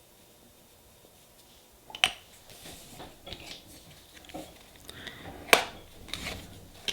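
Nail-stamping tools handled on a tabletop: a scraper scraping stamping polish across a metal stamping plate, with sharp clicks and knocks of the tools. The loudest clicks come about two seconds in and about five and a half seconds in, after a quiet start.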